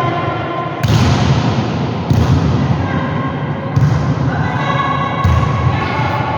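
A volleyball being hit, a sharp thump about every second and a half, over continuous background music.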